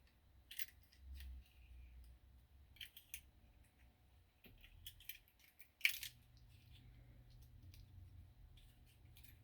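Scattered faint metallic clicks and ticks from a Toyota door lock cylinder and its small parts being handled and fitted back together, the sharpest click about six seconds in.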